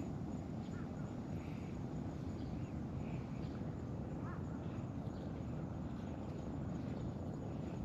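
Steady low outdoor background noise, with a few faint, short bird chirps.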